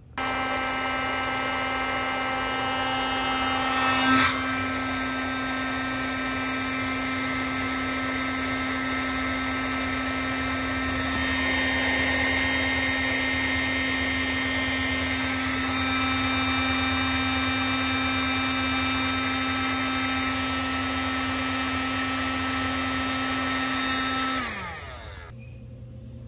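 Electric heat gun running steadily, shrinking heat-shrink butt connectors on wiring, with a brief bump about four seconds in. Near the end it is switched off and its fan winds down, the hum falling in pitch.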